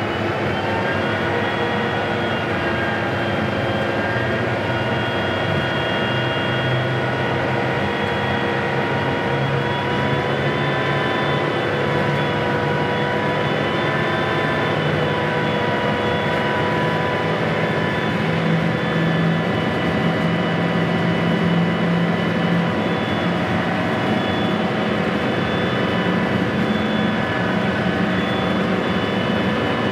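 Class 55 Deltic locomotive's Napier Deltic two-stroke opposed-piston diesel engines running steadily, heard from inside the driver's cab: a loud drone of several held tones that drift slightly in pitch.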